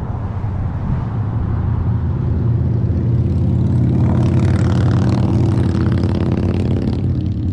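Motor vehicle engine running steadily, with the sound of a vehicle on the road swelling from about halfway through and easing near the end.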